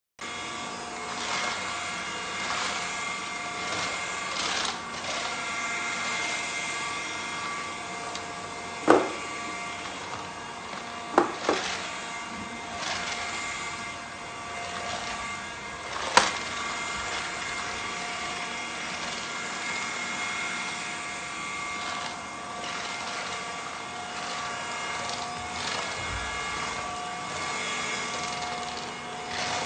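ELUXGO ALT1019 cordless stick vacuum cleaner running steadily, a motor whine with a rush of air, starting suddenly. A few sharp knocks cut through it, once about a third of the way in, twice soon after and once past the middle.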